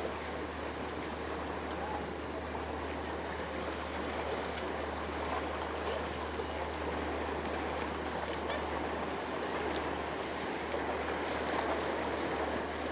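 Steady rush of moving water with a constant low hum beneath it.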